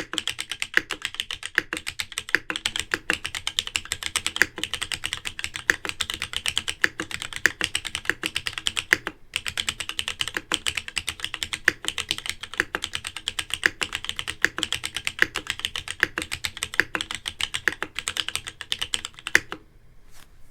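Fast, continuous typing on a Hippo TKL custom mechanical keyboard: a dense run of keystroke clacks with a louder stroke every second or so. It pauses briefly about nine seconds in and stops about a second before the end.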